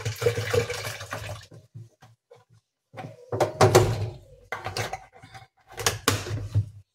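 Water poured from a large plastic bottle into a stainless steel pot, the pouring stopping about a second and a half in. After a short pause, several knocks and clunks of cookware being handled.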